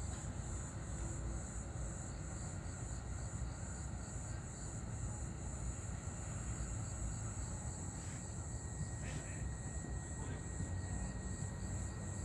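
Insects trilling in a steady high drone that pulses about three times a second, over a steady low rumble.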